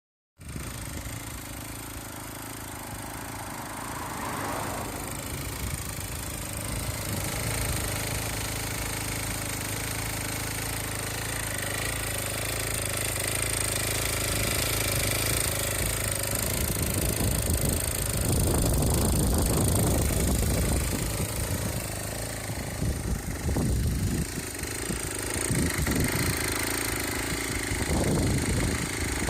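Aprilia SR50's 50cc two-stroke scooter engine running on a test frame, a steady idle with louder surges in the second half.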